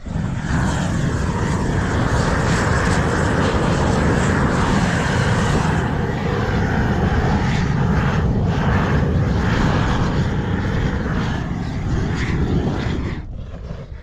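Gas torch burning steadily with a loud rushing noise, heating Izogam bitumen roofing membrane. It fades out about 13 seconds in.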